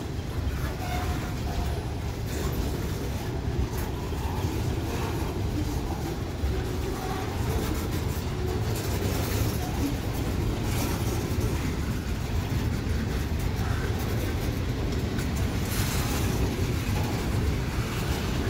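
Norfolk Southern freight train rolling past: a steady low rumble of cars on the rails, with scattered clicks of wheels over the track.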